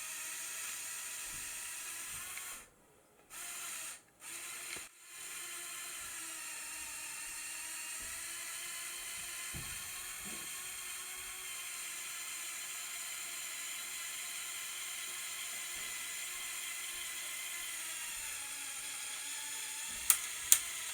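Electric motor of a remote-controlled Lego Technic 4x4 driving through its manual gearbox in first gear, low range, with a steady whine and plastic gear noise. The whine cuts out a few times between about 2.5 and 5 seconds in. Near the end come two sharp clicks, the Technic gears skipping under load.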